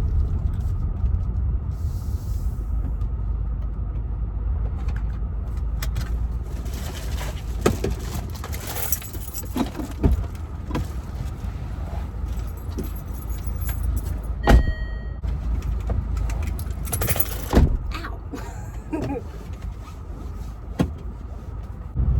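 Car running with a low engine and road rumble that eases after about six seconds, followed by a scatter of clicks, knocks and rustling with a jangle like keys.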